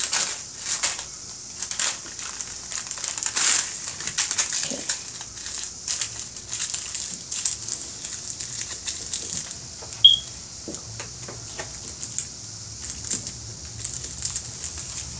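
Paper crinkling and rustling as a bar of soap is folded into pink wrapping paper by hand, busiest in the first few seconds. A short high squeak sounds about ten seconds in.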